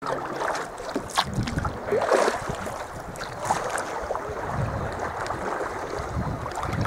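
Sea kayak on the move: water splashing and sloshing around the paddle and hull, with a few sharper splashes in the first few seconds, and wind buffeting the microphone.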